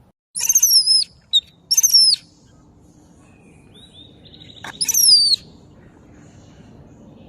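Baby monkey crying with three loud, high-pitched squeals, each dropping in pitch at the end, and a shorter buzzy call just before the third.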